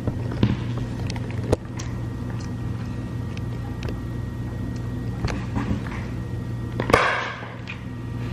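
Scattered light clicks and taps of a fork against a plastic meal-prep container while eating, over a steady low room hum. A short rustle of the plastic container comes about seven seconds in.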